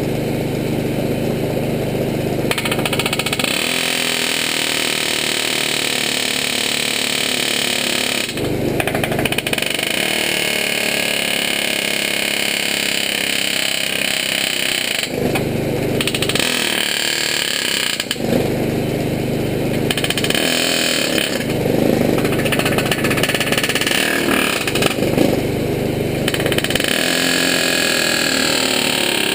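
Pneumatic air hammer rattling against steel in several long bursts, driving the cut-off rivets out of the rear spring hangers on a GMC one-ton truck frame.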